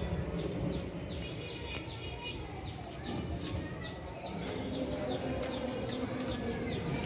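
Small birds chirping over and over in short, quick downward-sliding notes, with a steady low background hum and a few light clicks in the second half.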